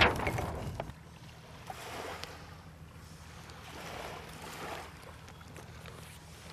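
Wind noise on the microphone, with a loud rush that dies away within the first second, then a low steady rustle broken by a few light clicks and soft rustles as a rope is tied to the boom at the mast.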